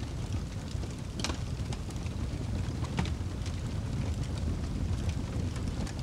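Fireplace fire burning with a steady low rumble and irregular crackles and pops. One louder pop comes just after a second in and another about halfway through.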